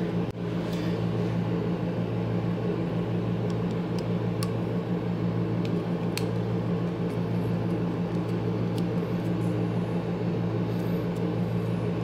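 Steady low machine hum, with a few faint sharp ticks as a small screwdriver loosens the screws of a plastic wire connector.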